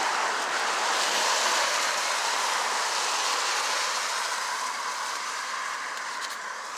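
Vehicle tyres hissing on a wet road as it passes, the rushing noise fading steadily as it moves away.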